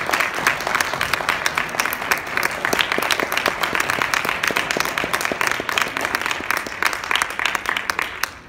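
Audience applauding with dense, steady clapping, which breaks off suddenly at the end.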